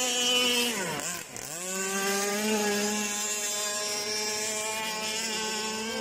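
Remote-control powerboat's motor running at high revs on the water. The pitch dips sharply about a second in, then climbs back and holds steady.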